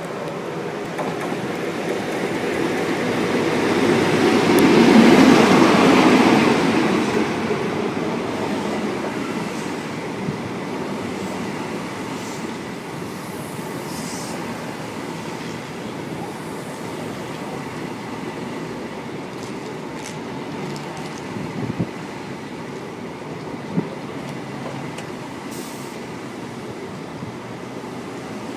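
InterCity 125 high-speed train coming into the platform: the leading power car's diesel engine grows loud and passes closest about five seconds in. The coaches then rumble slowly past on the rails, with a couple of sharp knocks near the end.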